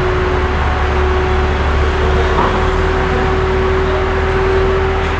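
In-cabin road noise of a BMW M2 (F87) driving on fresh Continental SportContact 7 tyres: a steady low drone of engine and tyre noise with a constant hum, unchanging throughout.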